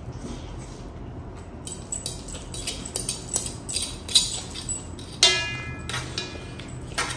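Metal fork clinking and scraping against a large stainless steel plate of noodles: a run of sharp clicks from about two seconds in, with one louder clink about five seconds in that rings on briefly.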